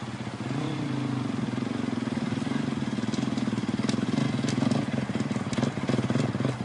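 Dirt bike engine running at low, steady revs while riding slowly over a rocky trail, with a quad's engine behind it, growing louder as they approach. Scattered clicks of loose stones under the tyres about halfway through.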